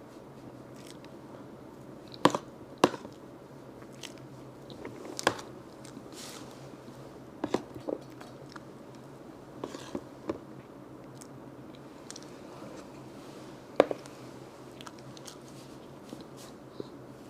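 A person eating close to the microphone: quiet chewing and mouth sounds, broken by a few sharp clicks and crunches, the loudest about two, three, five and fourteen seconds in.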